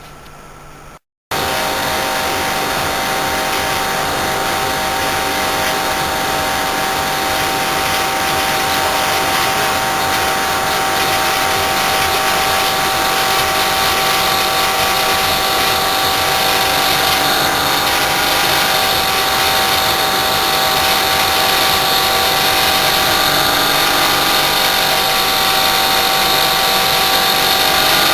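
Small rotary air-conditioner compressor running hard against a sealed high side, its discharge being pumped up to overload: a loud, steady mechanical whine and rattle with several steady tones. It starts abruptly about a second in and grows slowly louder as the pressure builds.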